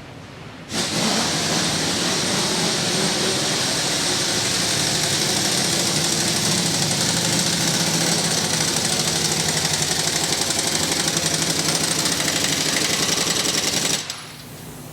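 Pneumatic impact wrench running in one long burst, a fast steady hammering over a loud air hiss, during a truck tire change. It starts about a second in and stops suddenly near the end.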